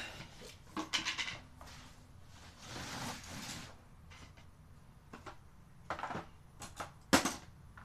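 Metal sockets and tools clicking and clattering in a plastic tool case as hands rummage through it, with a brief scraping rustle about three seconds in and a sharp click near the end.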